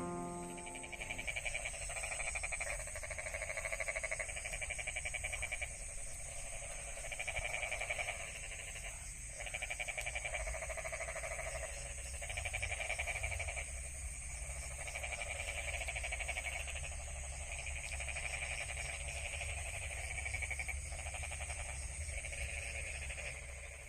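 A chorus of frogs calling in rapid pulsed trills, one trill after another, over a steady high-pitched insect drone.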